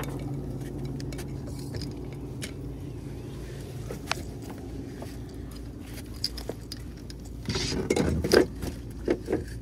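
Handling noise over a steady low hum: scattered clicks and scrapes, with a louder cluster of rustling knocks about eight seconds in and a few more just after.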